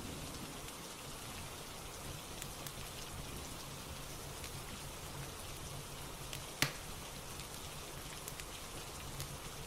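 Steady rain falling, with scattered small fire crackles and one sharper pop about six and a half seconds in.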